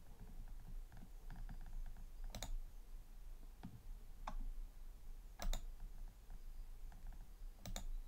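Computer mouse clicking: a handful of sharp clicks spread a second or more apart, some in quick pairs like a button pressed and released.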